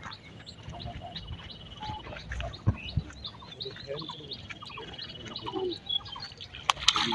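Small birds chirping outdoors, with many short scattered calls and a high, fast, pulsing trill that comes and goes, plus a few sharp clicks.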